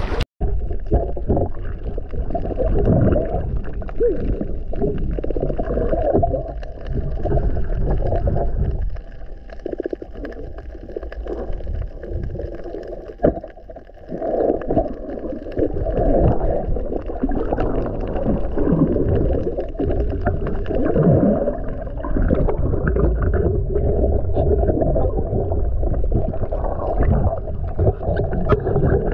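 Muffled underwater water noise heard through a camera underwater: low rumbling and gurgling churn, with a quieter lull between about 9 and 14 seconds in.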